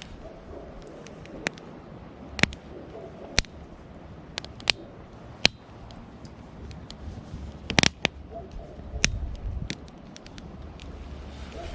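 Wood campfire burning with a low background rumble, and sharp pops and snaps at irregular intervals; the loudest cluster of pops comes about eight seconds in.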